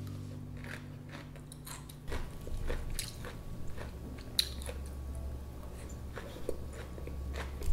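Chopsticks picking green beans and mushrooms out of a glass bowl and laying them on noodles in a ceramic bowl: a scattering of soft clicks and light clinks as the chopsticks touch the bowls, with a brighter clink about four and a half seconds in.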